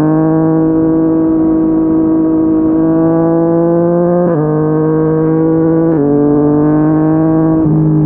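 Yamaha MT-09's inline-three engine through a Yoshimura R55 slip-on exhaust, pulling under acceleration with its pitch climbing steadily. It drops sharply three times in the second half as the rider shifts up through the gears.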